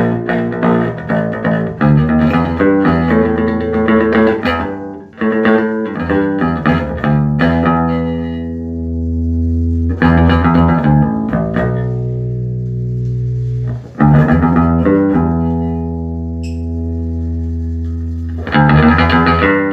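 Electric bass guitar played through a 1974 Ampeg B-15N Portaflex tube bass amp: runs of notes and chords, with several longer notes left to ring out and fade in the middle.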